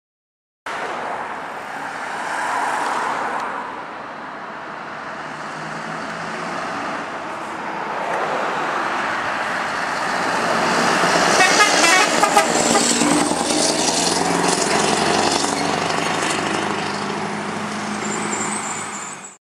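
Scania R560 V8 truck engine running through an open, straight exhaust pipe as the truck drives through a bend and passes close by. The engine sound builds and is loudest about halfway through, with a spell of rapid pulsing from the exhaust, then carries on loud and steady.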